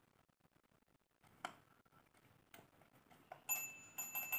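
A chrome twin-bell alarm clock being handled: a couple of light clicks, then from about three and a half seconds several light metallic strikes with a clear ringing tone that carries on for a second or so, as the metal bells are touched.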